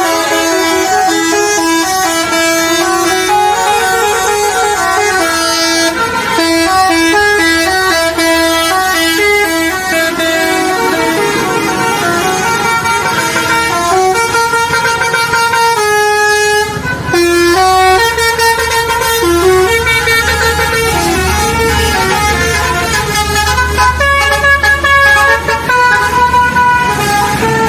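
Basuri 'telolet' multi-tone musical vehicle horn playing a tune of held notes that step up and down in pitch. A low engine rumble runs underneath in the second half.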